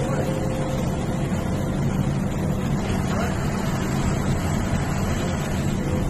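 Bus engine running with a steady low drone and a faint thin tone above it.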